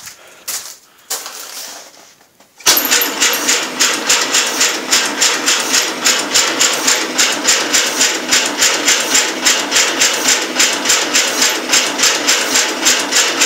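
Farmall Super A's four-cylinder C-60 engine on a cold start: after a few knocks it catches abruptly about two and a half seconds in and then runs steadily with an even beat of about five firing pulses a second.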